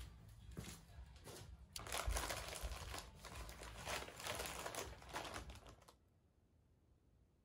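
Packing paper and plastic sheeting crinkling and rustling in irregular bursts as they are handled and pulled off the top of a new engine, stopping suddenly about six seconds in.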